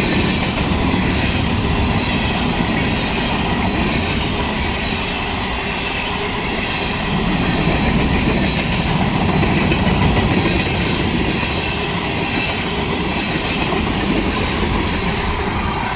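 A freight train's cars rolling past on the track, making a steady noise of wheels on rail with no horn sounding.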